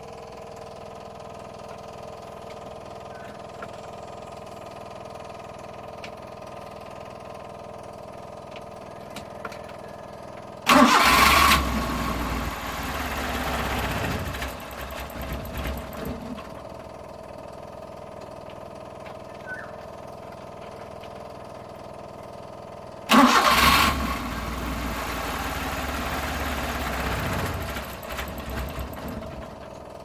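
Suzuki F6A Multicab's three-cylinder engine, cold and hard to start, cranked on the starter twice, about eleven seconds in and again near the end. Each try lasts about five seconds and dies away without the engine staying running.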